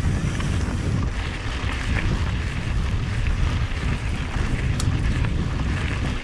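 Wind buffeting the microphone of a camera riding on a mountain bike going downhill, over the steady rumble of tyres rolling on a dirt and rock trail.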